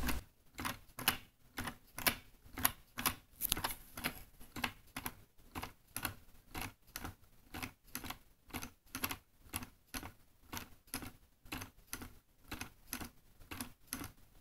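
Wooden clock drive mechanism, pushed by an electromagnetic pendulum through a spring-loaded one-way wedge clutch in place of a ratchet and pawl, making a regular soft clicking of about two or three clicks a second. It is the mechanism's quieter running, considerably quieter than a ratchet and pawl.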